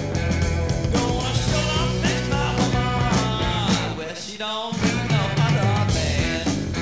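Blues-rock studio recording with a full band of electric guitar, bass and drums. The bass and drums drop out briefly about four seconds in, leaving bending pitched lines on top, then the band comes back in.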